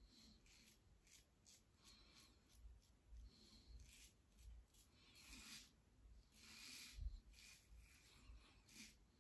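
Faint scraping of an Edwin Jagger 3ONE6 safety razor with a Rapira blade cutting stubble through shaving lather, in a string of short, irregular strokes. A soft bump comes about seven seconds in.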